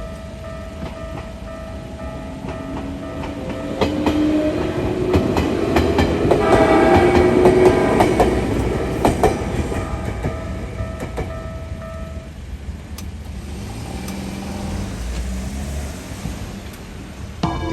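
An ex-Tokyu electric train of the Ueda Electric Railway passes over a level crossing, its motor whine rising in pitch and its wheels clacking over the rail joints. Under it the crossing's slow Keikyu-style electronic warning tone pulses steadily, then stops about twelve seconds in.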